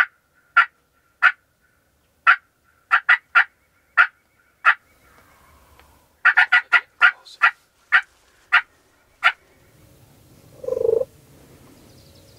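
Turkey yelps: a series of short, sharp notes, mostly spaced out, with a quick run of them about six seconds in. A short, lower call follows near the end.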